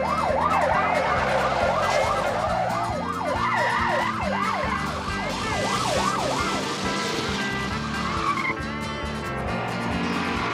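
Police car siren on a fast yelp, its pitch rising and falling about three times a second, over background music; the siren fades out about seven seconds in.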